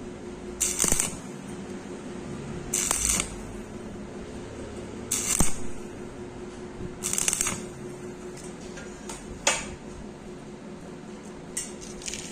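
Stick welding arc struck in short crackling bursts of about half a second, roughly every two seconds, with a steady hum throughout.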